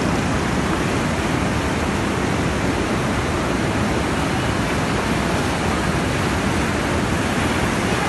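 Muddy floodwater rushing through turbulent rapids below a dam: a loud, steady roar of water.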